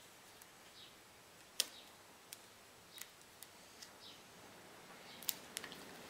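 Quiet handling sounds: a handful of short, sharp clicks with faint rustling, the loudest click about one and a half seconds in, as hands press a strip of handlebar tape around a road bike's brake lever and its rubber hood.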